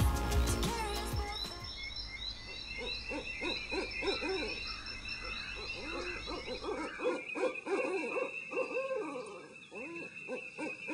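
Music fading out, then a dense chorus of short hooting animal calls that rise and fall, many overlapping, over a steady high insect trill.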